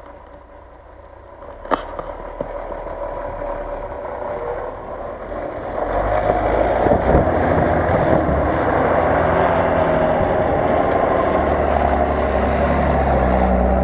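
Engine of a lifted Jeep Cherokee monster truck on oversized mud tyres driving through snow toward the camera, growing louder from about two seconds in and running loud and steady from about six seconds as it passes close by. A single sharp click near the start.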